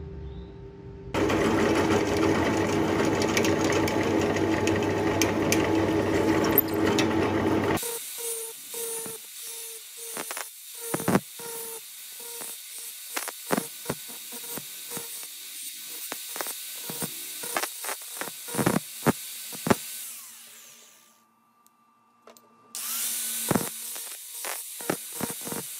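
An angle grinder with a grinding disc runs with a steady motor whine as it grinds the end of a threaded steel rod in many short passes, each contact a brief scrape. About 20 seconds in it is switched off, runs down to near silence, then starts up again and grinds on. Before the grinding passes, a loud, steady power-tool noise lasts several seconds.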